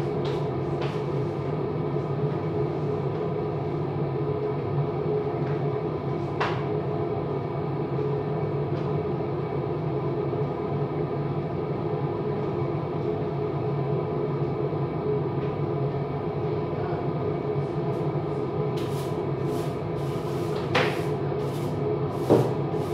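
A steady mechanical hum, such as a kitchen appliance or fan running, with scattered clicks and two sharper knocks near the end from utensils or cupboards being handled.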